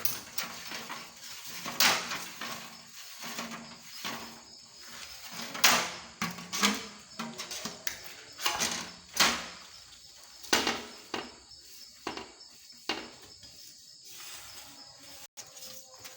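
A series of irregular sharp knocks and clinks of hard objects being handled.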